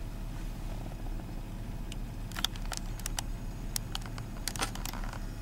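2001 GMC Sierra's 5.3-litre V8 idling steadily, heard from inside the cab. From about two seconds in there are scattered light clicks and taps.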